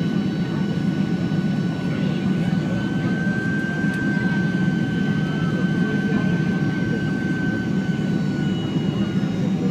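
Airliner cabin noise on approach to landing: a steady rumble of engines and airflow with a high engine whine over it. The whine rises slightly about three seconds in and eases back near the end.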